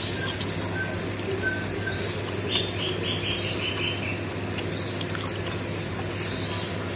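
Close-up chewing and wet mouth sounds of a person eating tofu meatballs with rice, over a steady low hum. A bird chirps in the background, with a quick run of about seven short notes stepping slightly down in pitch near the middle.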